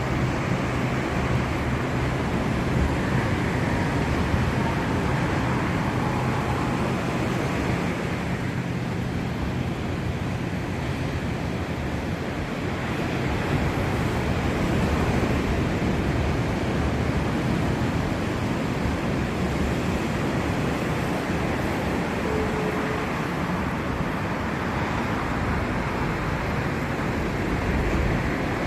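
Steady roar of ocean surf and wind, with wind buffeting the microphone.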